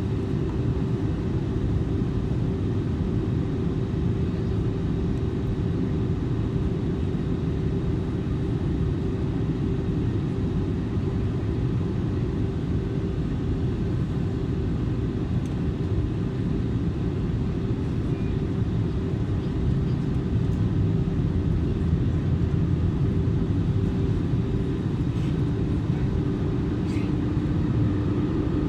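Cabin noise inside an Airbus A320neo on approach: a steady low rush of airflow and the Pratt & Whitney PW1100G geared turbofan engines, with a steady hum running through it. Near the end a second, slightly lower hum joins in.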